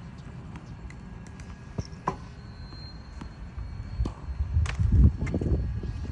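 Titan One tennis ball machine launching tennis balls, a sharp pop about every two and a half seconds. A louder low rumble swells about four seconds in and fades near the end.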